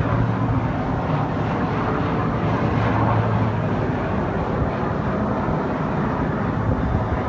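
Steady low rumbling noise with a constant low hum underneath.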